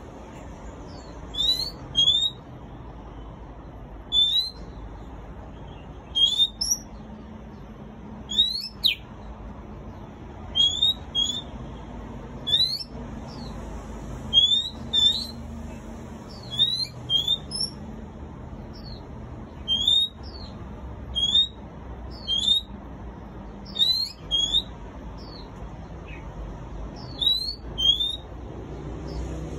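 Caged oriental magpie-robin singing: short, sharp rising whistles, singly or in quick twos and threes, repeated every second or two.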